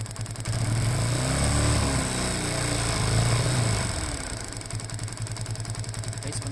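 Single-cylinder engine of a TVS Apache RTR 180 motorcycle idling, then revved up about half a second in, rising twice before dropping back to idle. The mechanic diagnoses this engine as misfiring, with the spark dropping out, so it struggles at certain rpm.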